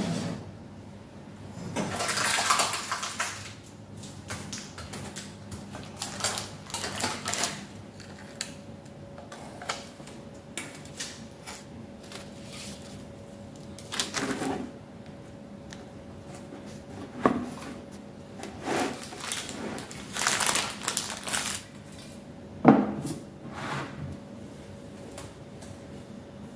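Baking paper rustling in several short bursts as cakes are handled, with a few sharp plastic clicks from a cake carrier and its lid being set in place, the loudest near the end.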